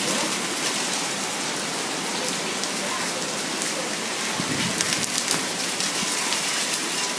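Heavy rain pouring down and hitting surfaces: a steady hiss. A few sharper drop hits come about five seconds in.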